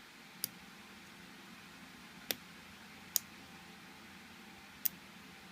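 Four sharp, irregularly spaced clicks as a hook pick works the pin stack of a Master Lock M15 laminated padlock held under tension, over a steady low hiss.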